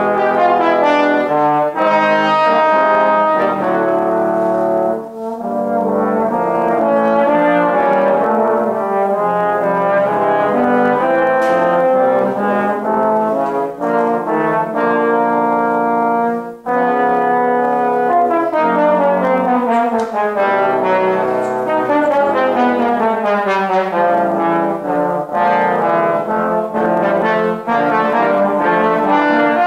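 Trombone quartet playing sustained chords together, with short breaks about five seconds in and again just past the middle. After the second break the parts slide downward in long falling glissandos for several seconds.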